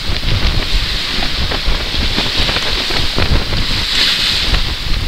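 Wind buffeting the microphone over the rush of waves breaking along the hull of a heeled sailboat in about 20 knots of wind. A louder burst of spray comes about four seconds in.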